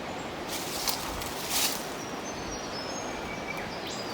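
A few brief, high bird chirps in the middle, over a steady background hiss, with two short rustles in the first two seconds.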